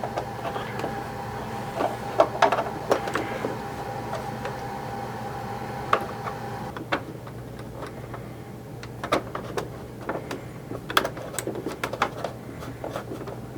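Hard plastic toy parts handled and pressed into place, giving scattered small clicks and taps, with a cluster of sharper clicks in the second half, as the chin gun's tabs are fitted onto a G.I. Joe Rolling Thunder toy. A steady background hum runs underneath, and a thin steady tone in it stops about halfway through.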